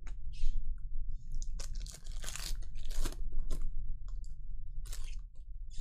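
Foil baseball-card pack wrappers crinkling and crackling in the hands in irregular bursts, busiest in the middle.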